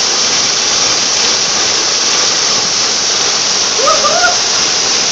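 Waterfall: a loud, steady rush of falling water. A brief distant voice cuts through about four seconds in.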